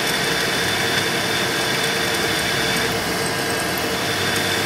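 Machine spindle running steadily while a small drill bit is fed gently into a broken-off M4 zinc-plated screw in an aluminium router base, drilling through it: an even hum with a higher whine, nearly breaking through.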